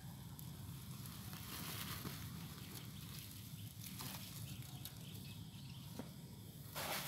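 Quiet outdoor ambience: a low steady hum with faint scuffs and rustles on sandy ground, and a short gritty scrape near the end.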